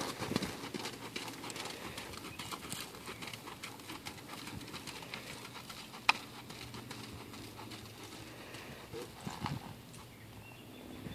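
Quarter Horse gelding's hoofbeats on a sand arena as it is ridden, a rapid run of soft strokes that fades as the horse moves away. One sharp click about six seconds in.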